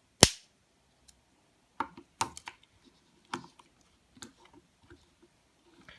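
Swiss army pocket knives being handled: one sharp click just after the start, then a scattering of smaller clicks and knocks.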